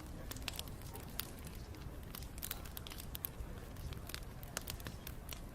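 Wood bonfire burning, with irregular sharp crackles and pops over a low, steady rumble.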